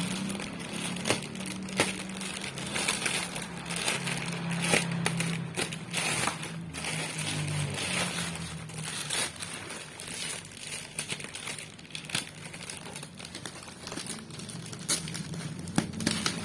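Plastic and cardboard packaging crinkling and rustling as it is handled and opened, with scattered sharp clicks, over a steady low hum.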